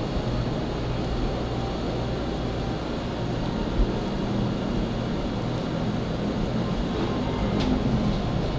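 Steady low mechanical rumble with a hum, with one short knock about four seconds in.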